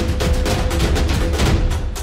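Taiko drumming music: fast, dense drum strokes with a deep, heavy low end.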